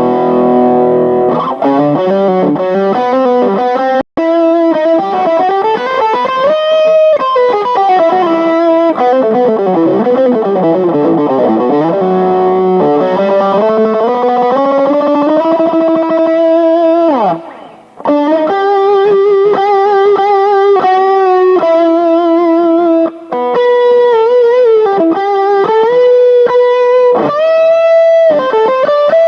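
Yamaha Studio Lord SL-500 solid-body electric guitar playing a lead line of sustained notes with vibrato, string bends and scale runs. A fast slide down in pitch comes about 17 seconds in, and the playing stops briefly near 4 and 18 seconds.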